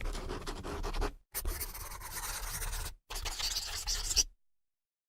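A pen scratching across paper in three writing strokes, each just over a second long, with brief pauses between them. It stops about four seconds in.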